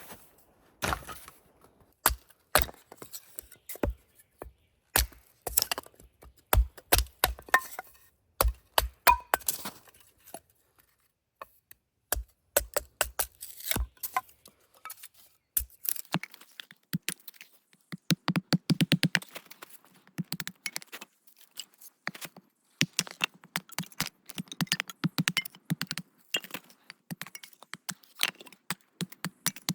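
Irregular knocks, clicks and thuds of objects being handled and set down, with a few dull low thumps in the first half.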